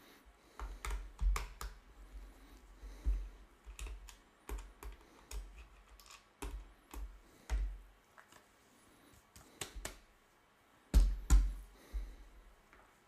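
Handling noise from opening the plastic case of a UNI-T UT61E multimeter: irregular clicks and knocks of plastic and small tools on a bench, with two louder knocks close together about eleven seconds in.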